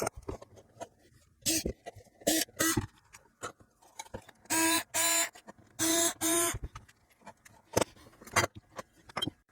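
A screwdriver undoing the screws of a small amplifier's case plates: short high-pitched bursts, each at the same pitch and often two at a time. A few sharp clicks come near the end.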